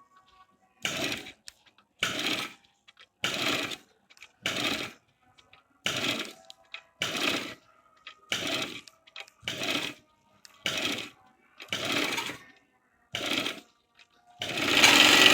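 Overlock (serger) sewing machine running in short bursts about a second apart, stitching the edge of a scuba-fabric mask, then one longer, louder run near the end.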